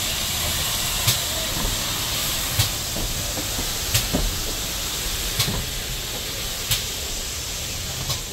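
GWR 4200-class 2-8-0 tank locomotive No. 4277 moving slowly past, venting a steady loud hiss of steam, with a sharp click about every second and a half.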